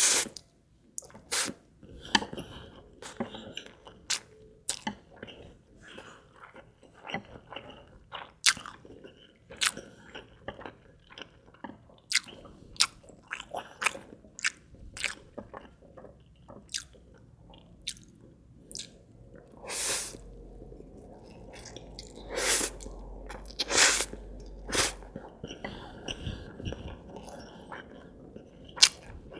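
Close-miked chewing and slurping of stir-fried instant noodles with egg: irregular wet mouth clicks and smacks, a few of them louder and sharper.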